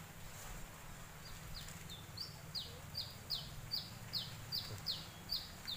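A small songbird calling a series of about a dozen short, high notes, each falling in pitch, roughly two or three a second, starting about a second in.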